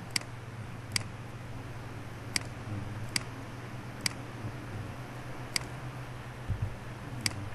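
Computer mouse button clicked seven times at irregular intervals, short sharp clicks over a steady low hum.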